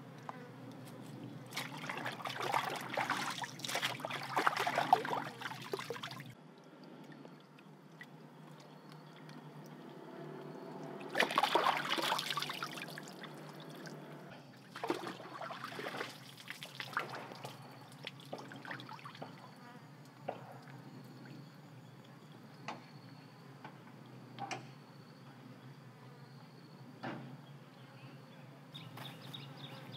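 Shallow stream water splashing and trickling as a cut-open fish is rinsed in it, with two louder stretches of splashing, then a few scattered knocks. A steady high insect drone runs underneath.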